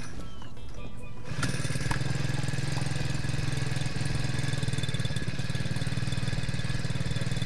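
Small 4 hp four-stroke outboard motor starting suddenly about a second and a half in, then running steadily.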